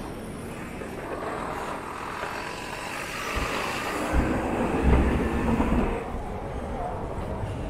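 City street traffic and riding noise heard from a moving bicycle: a steady rumble that swells about three to six seconds in, with a couple of heavy low knocks.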